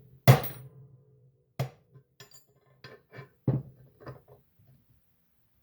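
Hammer striking a transfer punch to mark a hole centre in a steel plate: a sharp metallic strike with a short ring about a third of a second in, lighter knocks and clinks of steel tools, and another hard ringing strike at the very end. A steady low hum runs underneath.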